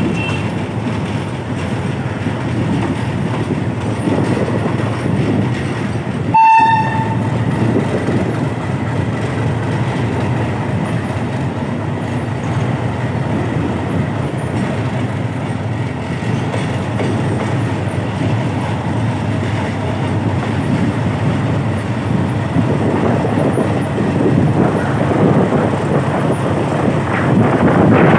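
Vietnam Railways diesel locomotive D13E-719 running, heard from aboard: a steady rumble of engine and wheels on the rails, with one short horn toot about six seconds in.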